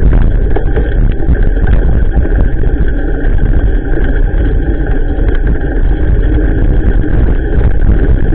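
Loud, steady low rumble of wind and tyre noise picked up by an action camera riding on a bicycle along a wet road in the rain.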